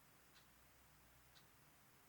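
Near silence with a faint clock ticking about once a second, two ticks in all.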